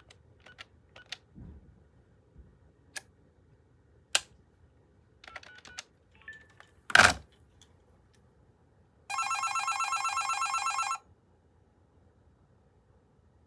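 AT&T Trimline 210 telephone's electronic ringer sounding its second ringtone: one ring of about two seconds with a fast, even warble, coming after several light clicks and one sharp click about two seconds before it.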